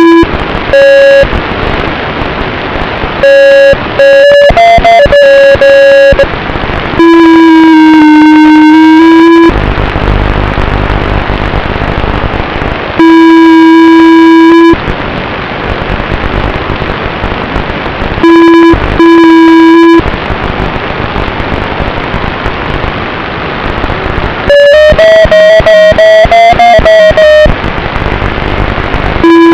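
FPV drone's motors giving a loud, distorted electric whine that cuts in and out and bends slightly in pitch with throttle, alternating with stretches of rushing prop and wind noise.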